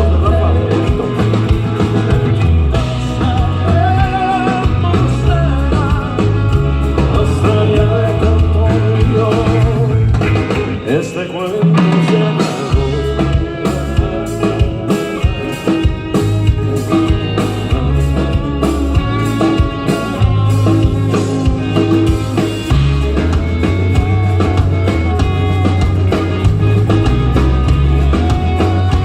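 Rock band playing live through a PA, with a steady bass line, drums and guitar. The bass drops out briefly about halfway through, then comes back in.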